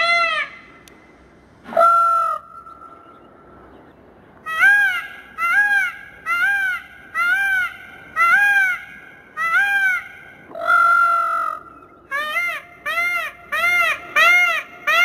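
Male Indian peafowl (peacock) calling: a long series of loud, arching wails, each rising and falling in pitch over about half a second. A longer, drawn-out call comes near the start and another around two-thirds of the way through, and the calls come faster, about two a second, in the last few seconds.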